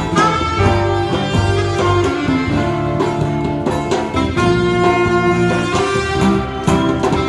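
Saxophone playing a melody live, accompanied by guitars and a hand drum.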